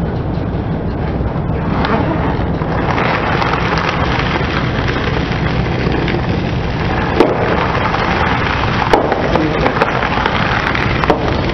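A car tyre slowly crushing cardboard boxes of crunchy breakfast cereal, with dense crunching and crackling and a few sharp cracks near the end, over the low steady hum of the car's engine.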